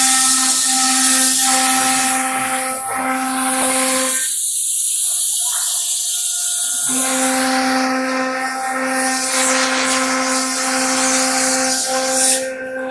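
Spindle of an ELE1325 ATC CNC router running at speed and cutting: a steady pitched tone with overtones under a loud hissing cutting noise. The tone and most of the noise drop out for about two and a half seconds a third of the way in, then resume.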